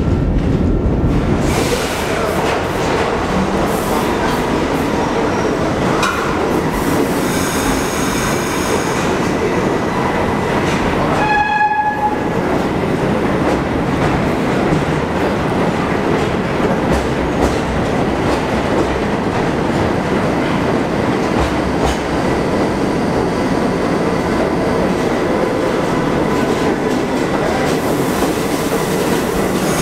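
Subway train of R32 cars running through an underground station: a steady rumble and rattle of steel wheels on the rails, with a short horn blast about twelve seconds in.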